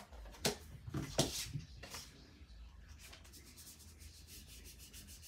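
A few soft taps as a small ink pad is dabbed onto a rubber stamp, then a light paper rustle as a strip of card stock is handled against the stamp.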